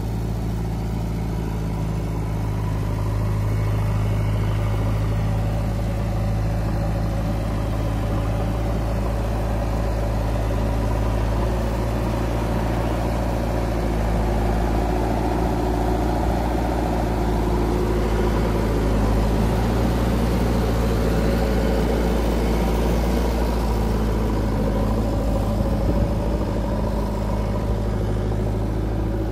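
Diesel engines of a JCB 3DX backhoe loader and a farm tractor running steadily, a constant low hum with no breaks, while soil is loaded into the tractor's trolley.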